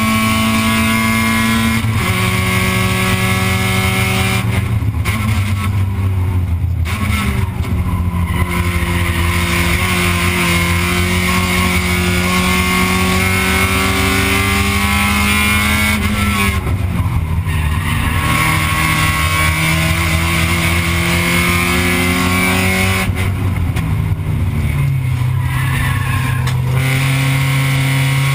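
Spec Miata race car's four-cylinder engine, heard from inside the cockpit, running hard at high revs. Its note drops several times and then climbs again, with longer dips a few seconds in, about two-thirds of the way through and near the end.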